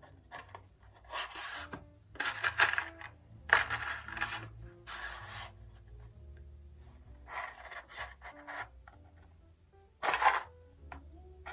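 A wooden match struck against a matchbox striker about six times, each stroke a short scrape of about half a second, over faint background music.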